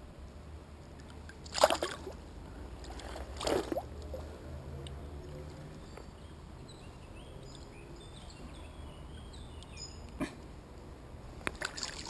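A hooked chub splashing twice at the water's edge, about two seconds apart, as it is landed by hand, over the faint steady trickle of the stream.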